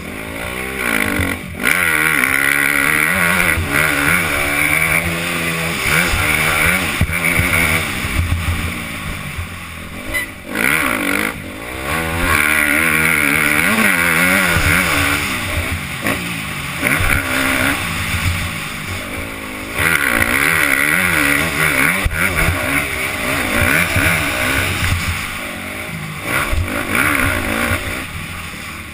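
Motocross bike engine revving hard and easing off again and again as it is ridden round a dirt track, its pitch rising and falling with each throttle change. Short lulls come about ten seconds in and again about twenty-two seconds in.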